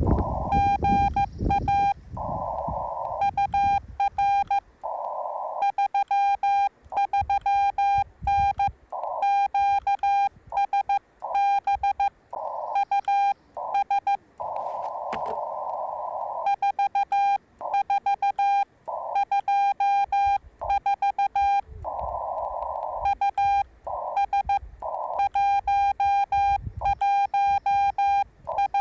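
Morse code from a Yaesu FT-891 ham radio transceiver: a single steady tone keyed on and off in dots and dashes. In the longer pauses, narrow-band hiss from the receiver's CW filter fills in.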